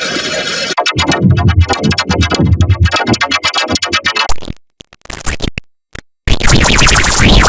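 Heavily edited electronic music: a buzzing synth tone, then about three seconds of choppy, stuttering low beats, two abrupt dropouts to silence past the middle, and a loud noisy passage with a rising sweep near the end.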